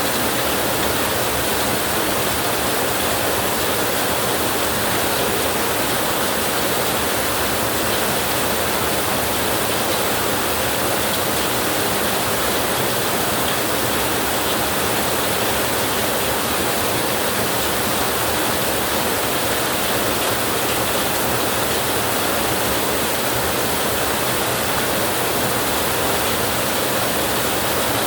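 Steady rain, an even unbroken hiss with no thunderclaps or rumbles.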